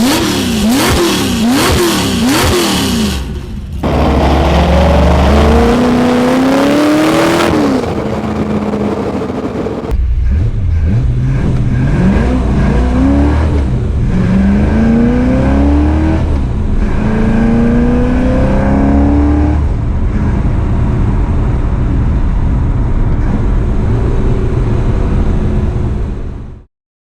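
Mildly tuned small-block Chevy V8 with Schoenfeld 180-degree headers, whose evened-out exhaust pulses give it a smooth, even exhaust note instead of the usual V8 burble. It is blipped up and down quickly several times, then pulls in climbing runs whose pitch drops and climbs again as if through gear changes, then runs steadier before cutting off suddenly near the end.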